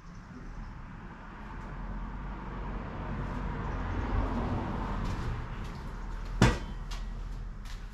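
Shuffling, rubbing handling noise that builds up over several seconds, then one sharp knock about six and a half seconds in, with a few lighter clicks near the end.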